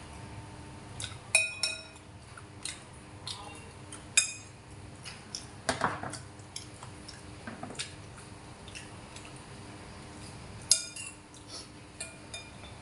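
A metal spoon clinking and scraping against ceramic bowls: several sharp, ringing chinks spaced out over the stretch, with quieter scrapes between them.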